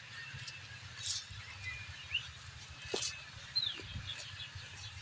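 Wild birds chirping in the open: a few short, quick calls, one gliding up and one gliding down, over a low steady rumble, with a few sharp knocks in between.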